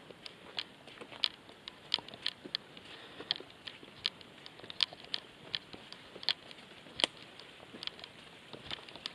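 Footsteps on loose stones: stones clicking and knocking together underfoot in irregular sharp clicks, about two a second, while climbing a steep rocky slope.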